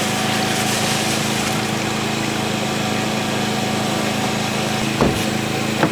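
A small engine running steadily, an even hum with hiss over it, with a couple of brief knocks near the end.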